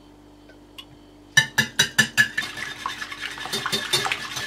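A metal wire whisk beating raw eggs in a ceramic plate: a few sharp clinks about a second and a half in, then fast, steady whisking.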